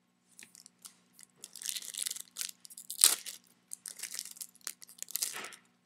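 Foil wrapper of a Topps Chrome card pack being torn open and crinkled, a run of irregular crackling rustles with the loudest about three seconds in.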